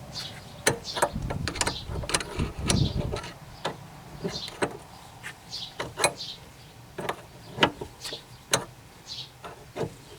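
Ball joint separator being worked on the upper ball joint of a Corvette's rear steering knuckle, giving sharp, irregular metallic clicks and creaks as the tool is turned under load.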